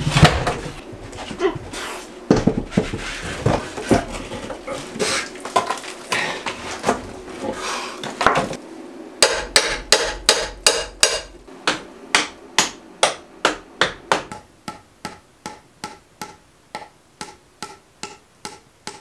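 Knocks and bangs of heavy old timber being worked into a window frame, irregular at first. From about nine seconds in comes a steady, even tapping about two a second, which grows fainter from about fourteen seconds on.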